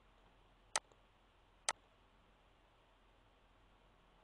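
Two sharp computer mouse clicks, about a second apart, over faint steady hiss.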